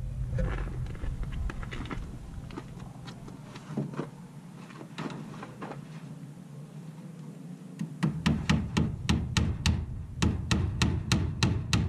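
Scattered light knocks and handling clatter, then from about eight seconds in a hammer striking in a steady run of about three blows a second, driving nails into wood.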